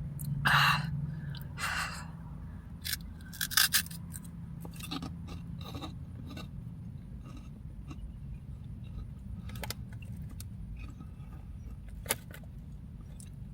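Crunchy puffed snack rings being chewed, with a few short crunches and rustles standing out over a low steady hum.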